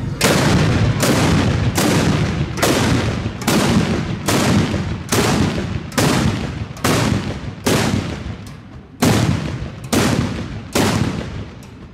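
A row of carbide cannons, small cans charged with calcium carbide and water with a ball plugging each mouth, going off one after another as the acetylene is lit: about fourteen loud bangs, roughly one every 0.8 s, each with a short ringing tail, growing fainter toward the end.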